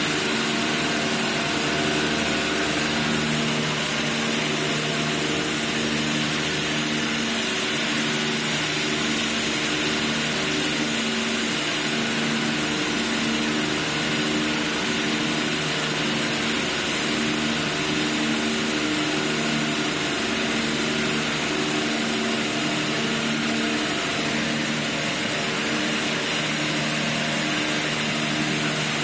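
High-pressure water jets from an automatic car wash's spray nozzles hissing steadily onto a car, over the constant hum of the wash's pump machinery.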